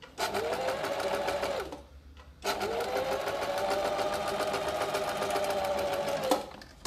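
Janome 523H electric sewing machine stitching a narrow rolled hem in two runs with a short pause between them: the motor speeds up, runs at an even pace with a fast stitch rhythm, then slows, and the second run ends with a click.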